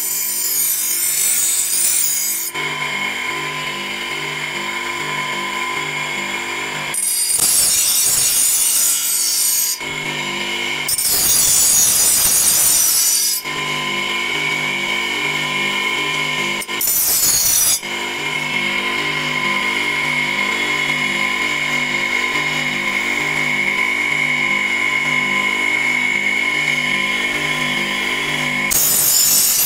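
An electric grinder's abrasive disc running against the steel of a rusty cleaver blade, grinding off rust. A steady whine is broken by several louder, harsher stretches where the disc bites harder into the metal.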